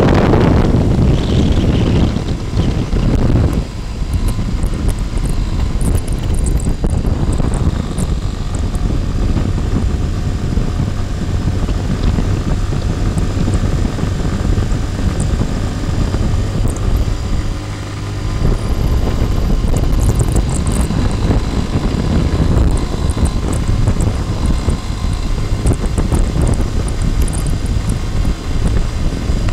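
Motorcycle engine running under light throttle as it pulls uphill, under heavy wind rush on the microphone. The sound dips briefly twice, about four seconds in and again around eighteen seconds in.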